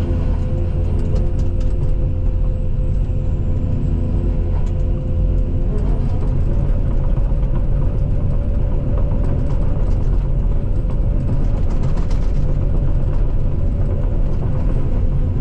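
Case CX220E excavator's diesel engine and hydraulics running steadily under load, its pitch stepping up slightly about six seconds in, with scattered short knocks and cracks.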